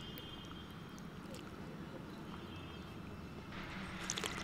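Eating sounds: rice and fish curry worked by hand on a plastic plate, then a few sharp slurps near the end as the gravy is sipped straight from the plate's rim.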